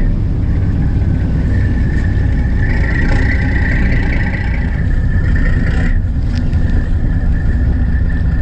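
Fishing boat's engine running steadily, a heavy low rumble with a high steady whine over it that weakens about six seconds in.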